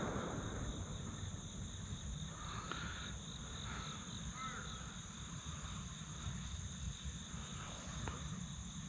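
Steady outdoor insect chorus, crickets buzzing in a continuous high drone, with a few faint short chirps in the middle.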